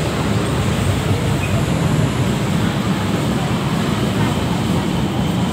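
LRT-1 first-generation light rail train moving along the station platform: a steady, loud rumble of wheels and running gear.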